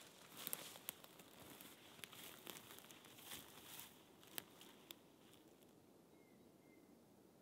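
Faint footsteps through dry heather and twigs: a scattering of soft crackles and snaps that die away about five seconds in.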